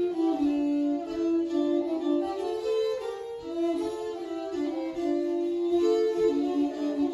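Violin music: several bowed notes held and overlapping, moving slowly between pitches.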